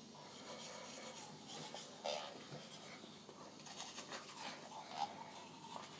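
Toothbrush scrubbing teeth in faint, irregular strokes.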